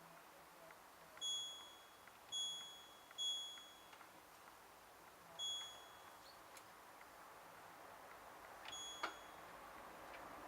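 LG F1222TD washing machine's control panel beeping as its buttons are pressed to set the wash programme. There are five short high-pitched beeps: three in quick succession, one a couple of seconds later and a last one near the end, with faint button clicks in between.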